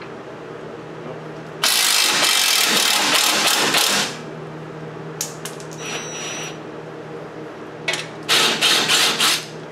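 Cordless Milwaukee impact wrench hammering on a rear suspension bolt for about two and a half seconds, then several short bursts of hammering near the end. A steady low hum runs underneath.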